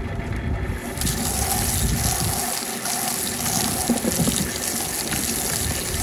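Garden hose spraying water into a plastic 5-gallon plucker bucket, washing it down. The splashing hiss starts suddenly about a second in and then runs steadily.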